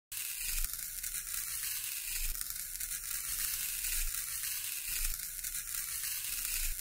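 A thin stick scratching through fine sand: a steady, grainy, mostly high-pitched hiss with a faint low rumble underneath.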